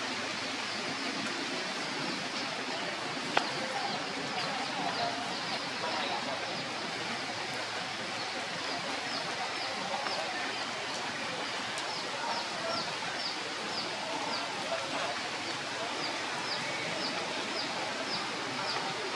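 Steady rain hissing on the forest canopy, with a high chirp repeating about twice a second through it and one sharp click a few seconds in.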